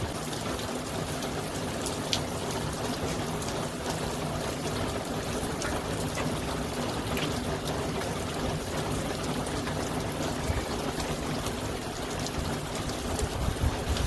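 Steady rain with water trickling and running, a few faint ticks among it.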